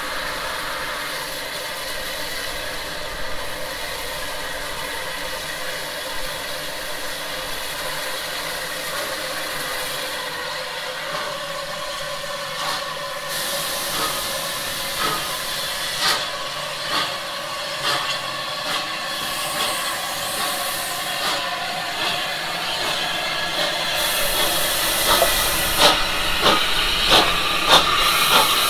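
Steam locomotive hissing steam while its beats grow louder and slightly quicker over the last few seconds, as it approaches and passes.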